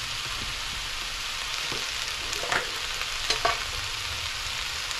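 Sliced cabbage and carrots sizzling steadily in a frying pan, with a few light knocks about halfway through.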